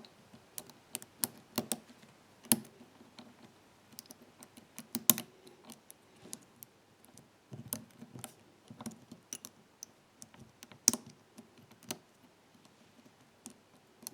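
Lock pick working the pins inside an ABUS 83/45 padlock's cylinder: irregular small metallic clicks and scrapes, with a few louder ticks.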